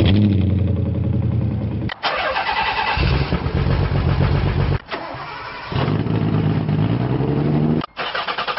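Car engines starting and running through their exhausts, heard as several short clips cut together, each two to three seconds long and breaking off abruptly. In one clip the engine's pitch climbs slowly as it revs up.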